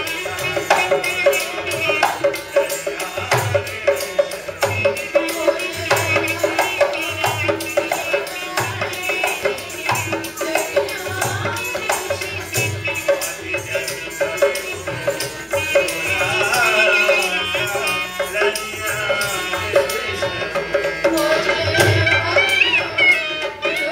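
Live Rajasthani folk music: a hand drum keeps a steady beat under a sustained melody line, with sharp percussive clicks throughout.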